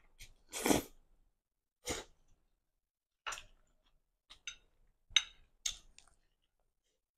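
A person eating stir-fried flat rice noodles close to the microphone: a long slurp about a second in, two shorter slurps after it, then wet chewing smacks and clicks.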